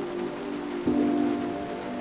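Steady rain falling, with soft ambient music of sustained chords over it; a new chord comes in a little under a second in, slightly louder.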